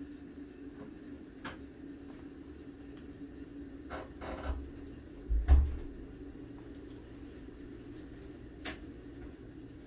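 A dachshund chewing raw chicken: a handful of scattered crunches and clicks over a steady low hum, the loudest a crunch with a dull thump about five and a half seconds in.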